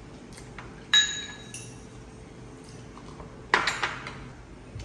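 Metal spoons and ladle clinking against ceramic bowls during a meal: one ringing clink about a second in, a couple of light taps, then a quick cluster of clinks and knocks a little past three seconds.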